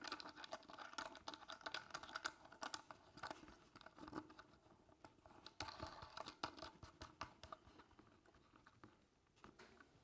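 Faint light clicking and scraping of plastic as the hand nut is screwed onto the sensor electrode by hand and the plastic steam cylinder of an electrode steam humidifier is handled. The clicks thin out about three-quarters of the way through.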